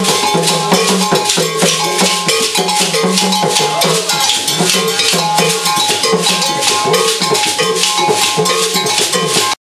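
Percussion music with a fast, dense rattle or shaker pattern and a ringing bell, over a low melodic figure that repeats about once a second.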